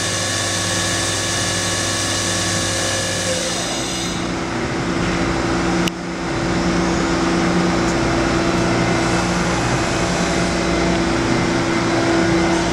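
Hyundai-Kia SKT21LMS CNC lathe running: its spindle drive whines in several steady tones that stop about three and a half seconds in, as the sub spindle comes to rest. A sharp click follows a couple of seconds later, then the machine's steady hum carries on.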